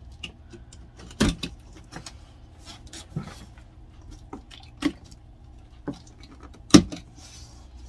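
A cardboard box being cut open along its taped top with a utility knife: scattered small taps, scrapes and knocks of the blade and hands on the cardboard, the two loudest about a second in and near the end, over a low steady hum.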